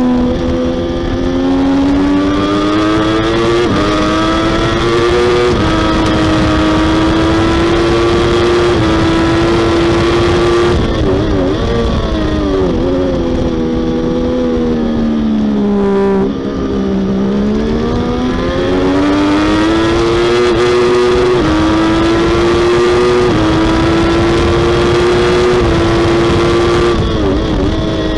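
Triumph Daytona 675R's 675 cc three-cylinder engine at racing revs under hard throttle, with a steady wind rush over the bike. The engine note falls as the bike slows for a corner about halfway, then climbs again, broken by a few brief gear changes.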